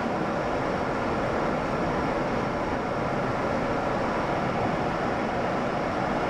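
Steady rush of airflow and motor noise from a Volantex Ranger G2 RC plane in low, level flight, heard through its onboard microphone.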